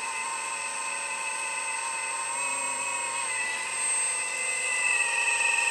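Motors of an Earth Digger 4200 XL radio-controlled excavator whining steadily as the arm works to set the bucket down and release it. The pitch dips slightly a couple of times.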